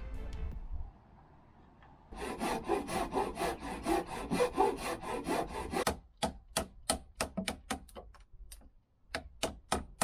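Hand saw cutting through a roundwood pole: after a short lull, about two seconds in, quick back-and-forth strokes set in, and from about six seconds in they turn into shorter, separate strokes a few to the second.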